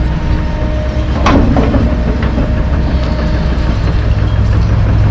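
John Deere 470G track excavator's diesel engine working under load while the bucket digs into dirt, with a sharp clank about a second in. The engine note grows heavier near the end as the boom lifts the loaded bucket.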